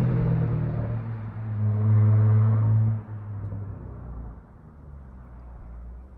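Dodge Charger SXT's V6 through a Flowmaster Outlaw exhaust, running loud under throttle; about three seconds in the note drops away and fades to a low rumble.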